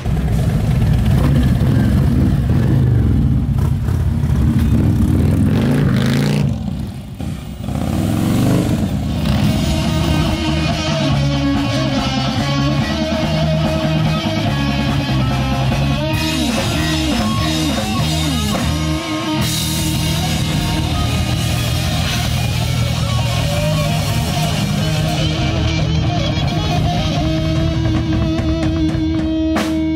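Live rock band playing loudly with distorted electric guitar, bass guitar and a drum kit, with a brief drop in level about seven seconds in.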